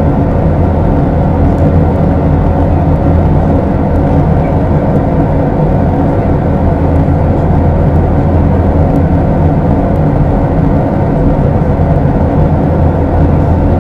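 Steady cabin noise of a jet airliner in flight: a low engine drone and the rush of air past the fuselage, heard from a window seat.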